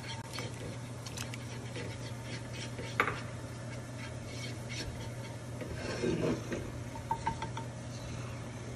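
Metal ladle stirring and scraping in a stainless steel pot of thick rice porridge, with a sharp knock about three seconds in and a few light clinks near the end, over a steady low hum.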